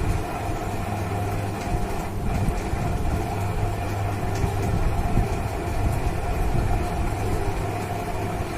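A steady mechanical rumble with a constant low hum that does not change.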